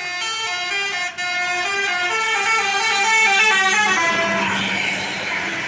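Indonesian bus's telolet horn playing a quick multi-note tune of stepped tones, the pitch changing several times a second. About four seconds in, the tune gives way to a loud rushing noise with a steady low hum.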